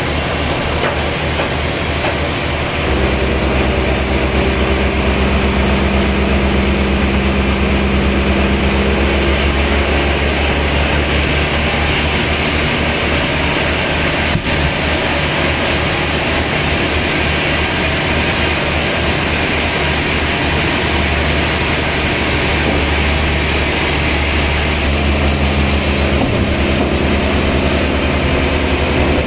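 Sawmill machinery running steadily, with a low engine-like drone. It grows louder about three seconds in and changes pitch near the end.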